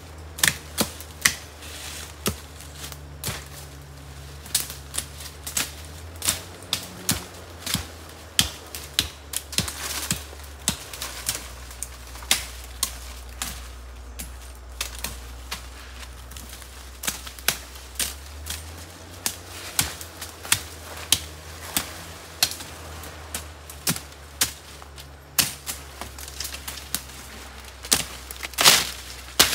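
Irregular sharp knocks and snaps, roughly one or two a second, over a low steady hum, with a louder clatter of strokes near the end.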